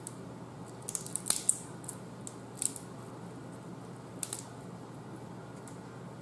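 Snow crab leg shells being cracked and snapped apart by hand: a quick cluster of sharp cracks about a second in, then two single cracks later.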